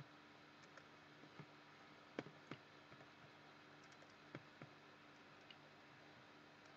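Several faint, scattered computer mouse clicks, the strongest pair about two seconds in and another pair past four seconds, over a faint steady hum.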